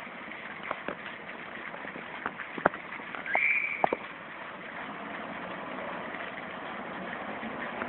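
Steady road and engine noise from inside a moving vehicle, with a few sharp knocks and a brief high-pitched squeal a little before the middle.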